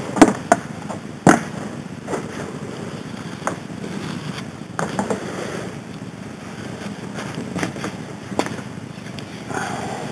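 Handling noise of a vinyl sleeve being fitted over a bounce-house blower's outlet: rustling and a series of sharp knocks and clicks, the loudest in the first second and a half, over a steady low rumble.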